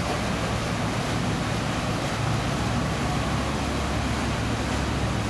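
Stern-wheeler excursion boat passing, its stern paddle wheel churning the river water, over a steady low hum that grows stronger about two seconds in.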